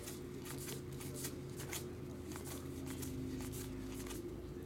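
Pokémon trading cards being flipped through by hand: a series of soft flicks and slides of card stock, over a steady low hum.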